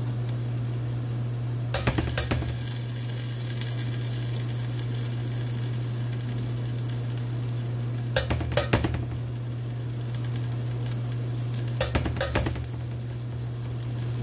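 Onions, garlic and ginger sizzling in a stainless steel sauté pan over a steady low hum. Three short bursts of clattering knocks come about 2, 8 and 12 seconds in as utensils strike the pan.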